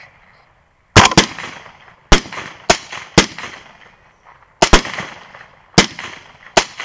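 A group of LWRC semi-automatic rifles firing a ragged volley of follow-up shots at running hogs: about eight sharp cracks at uneven spacing, two of them close together about a second in, each trailing off in a rolling echo.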